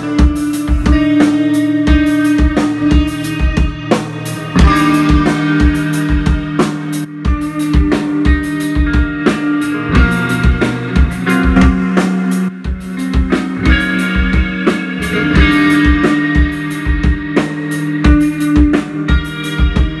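Live rock band playing: distorted electric guitars with bass over a steady drum-kit beat of kick and snare.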